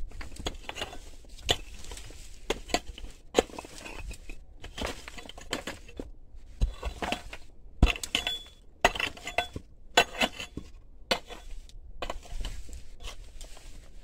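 A pickaxe digging in stony soil: irregular knocks and clinks as the blade strikes and scrapes stones and earth.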